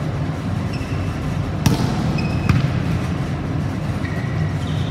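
Volleyball rally in a gymnasium: two sharp smacks of the ball being played, a little under a second apart, near the middle, with a few brief high squeaks of shoes on the court floor over a steady low hum.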